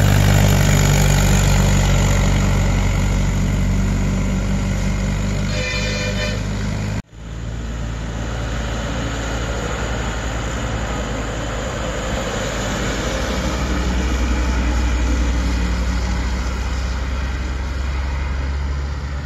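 A Mahindra farm tractor's diesel engine labouring steadily as it tows a loaded trailer round a hairpin bend, with a short vehicle horn toot about six seconds in. After an abrupt cut, a bus's diesel engine climbs through the bend, growing louder and heavier toward the end.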